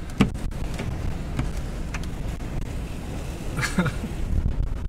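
Wind buffeting the microphone in a steady low rumble, with a few knocks, the sharpest one just after the start.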